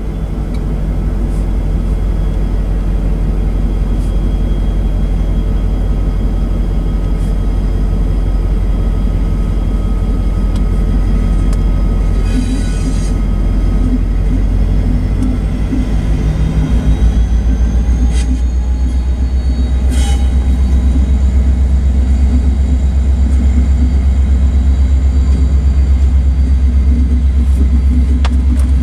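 Union Pacific diesel locomotives running at low speed as they pull a manifest freight train past, a steady deep engine drone that grows louder about two-thirds of the way in. There are a couple of brief high squeals partway through.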